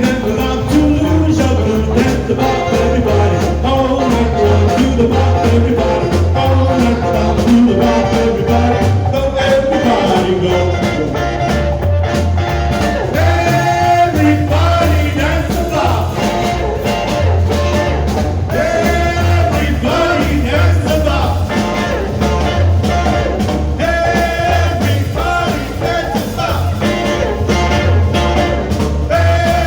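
A live band playing upbeat rock-and-roll music, with a steady, pulsing bass beat.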